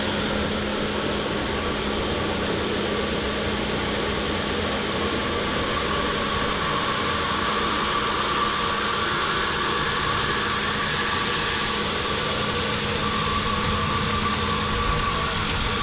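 Fire pump running during a flow test: a steady rush of water discharging under pressure over a constant low hum.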